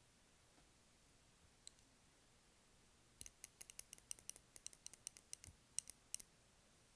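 Quick, light tapping on a candle: a single tap, then a fast, irregular run of about twenty sharp, high taps over three seconds.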